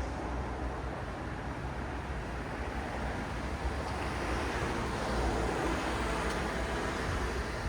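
City road traffic: a steady wash of tyre and engine noise from passing cars with a low rumble underneath. It swells a little across the middle as a vehicle goes by.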